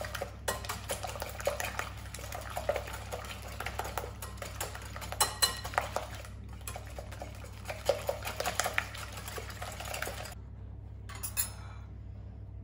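Wire balloon whisk beating eggs and caster sugar in a glass bowl: quick, continuous clinking and scraping of the wires against the glass, which stops about ten seconds in. A few separate clinks follow near the end.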